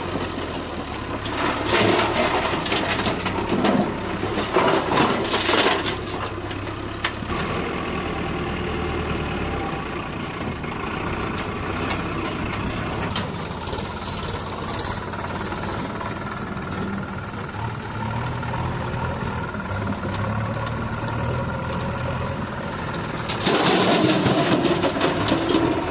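Heavy diesel engine of earthmoving machinery running steadily, with louder, harsher spells in the first few seconds and again near the end.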